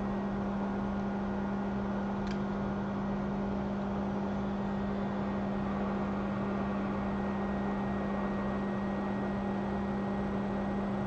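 Steady electrical hum with a constant fan-like whir from running workbench equipment, with one faint tick about two seconds in.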